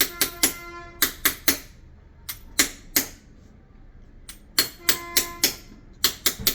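Small hammer tapping a metal chasing tool into a copper sheet: quick runs of three to five sharp taps with short pauses between, some strikes leaving a brief metallic ring.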